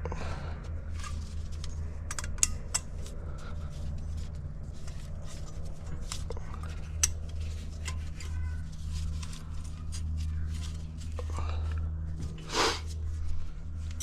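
Scattered metallic clicks and clinks of brake pads and caliper bracket hardware being handled and fitted, over a steady low hum. A louder scraping sound comes near the end.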